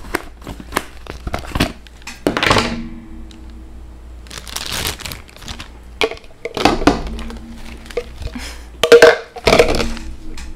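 Thin plastic packaging crinkling and tearing as a Barbie Color Reveal doll's wrapped accessory packets are pulled open. It comes in irregular rustling bursts with small clicks and knocks of plastic, loudest near the end.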